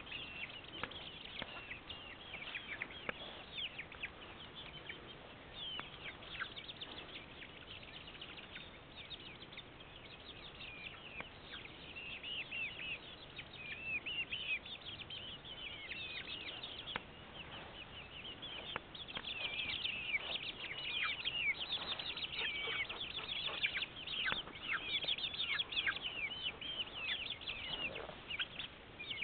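A flock of young chickens peeping and chirping: many short, high-pitched, mostly falling calls overlapping one another, getting busier in the second half.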